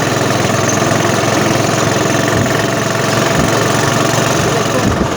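Small single-cylinder four-stroke Honda Supra motorcycle engine, fitted in a homemade car, running steadily with a fast, even pulse.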